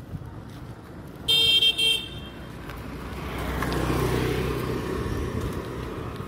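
A vehicle horn beeps twice, a longer toot then a short one, about a second in. A motor scooter then passes close by, its engine and tyre noise swelling and fading away, loudest about four seconds in.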